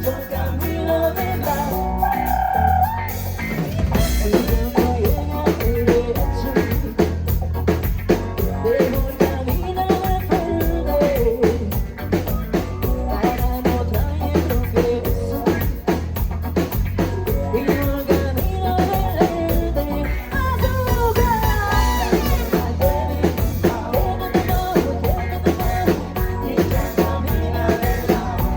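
Live Latin pop band playing an up-tempo number, a drum kit beat and bass pulsing steadily under melodic lines.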